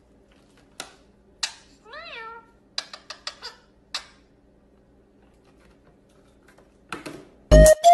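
Sharp clicks and taps from a ring-necked parakeet's beak nipping and nudging a plastic water bottle on a glass table, with one short meow-like call that rises then falls about two seconds in. Loud music starts near the end.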